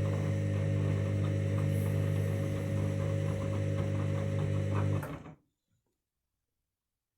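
Candy washing machine in its main wash: the drum motor runs with a steady hum and light clicking, then stops suddenly about five seconds in.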